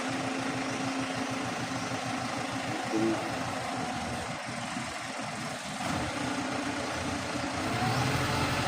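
An engine idling steadily, getting a little louder near the end.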